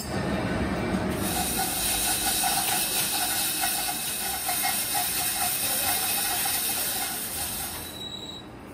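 Steady hiss of crankshaft production machinery, which dies away about eight seconds in.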